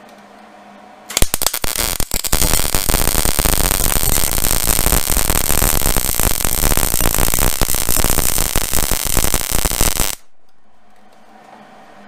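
Hobart Handler 140 MIG welder arc crackling as a bead is laid. It catches with a few stuttering starts about a second in, then crackles steadily for about eight seconds and cuts off suddenly. The wire feed is set at 40 with the voltage at 5, which the welder judges still too high on the wire feed.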